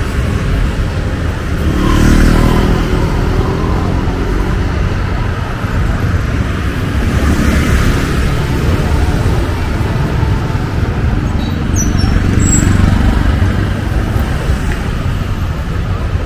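Busy market street: motorbike and car traffic running past, one passing louder about two seconds in, over a general hubbub of voices.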